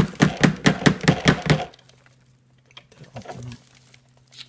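Roomba 980's plastic dust bin being shaken and knocked to empty out the collected debris: a fast run of sharp rattling knocks, about five a second, that stops about a second and a half in, followed by faint handling sounds.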